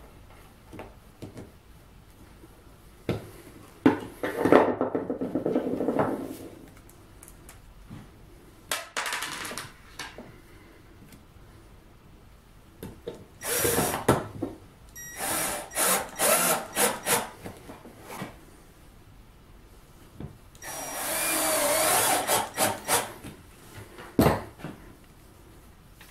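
Compact Metabo cordless drill-driver run in a series of short bursts against the plastic end of a sealant cartridge, with the longest run of about two seconds near the end and a single sharp knock just after.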